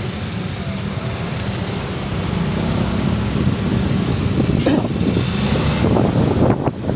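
Motor vehicle engine running with road and traffic noise, growing louder from about two seconds in.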